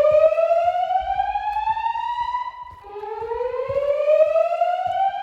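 Fire alarm voice-evacuation speakers sounding the slow-whoop evacuation tone between spoken messages: a rising whoop that climbs steadily in pitch for about three and a half seconds. The whoop breaks off a little before 3 s in and starts again from the bottom.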